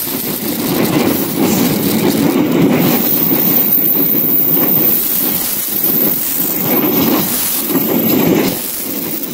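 Taksaka express train's passenger coaches rolling past at close range: steel wheels running on the rails, with a rumble that swells and eases in repeated surges as the wheel sets go by.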